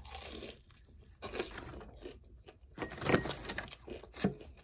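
Close-miked eating sounds: crunching and chewing of crisp fried food, with a run of louder crunches about three seconds in and another just after four.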